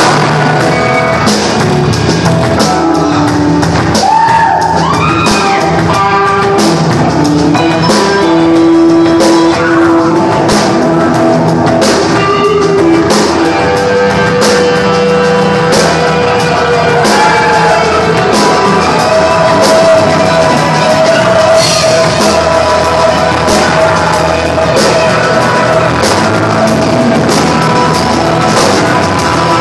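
Live rock band jamming loudly: an electric guitar plays a lead line with bent and long held notes over a steady drum-kit beat.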